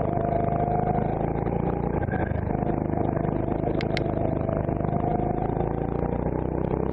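Rental go-kart engine of a CRG Centurion kart running steadily under throttle, heard from the driver's seat through a slow corner and then accelerating. Two sharp clicks about four seconds in.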